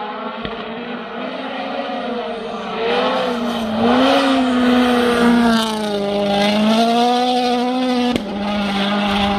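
M-Sport Ford Fiesta WRC rally car driven flat out on a snow-covered road, approaching from a distance. The engine note climbs and falls with gear changes and grows loud from about four seconds in. The pitch drops sharply as the car passes, about eight seconds in.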